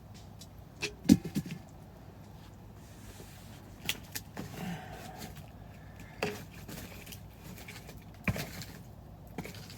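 Scattered sharp knocks and clicks of things being handled. The loudest knock comes about a second in, followed by a small cluster, then single knocks spread a few seconds apart.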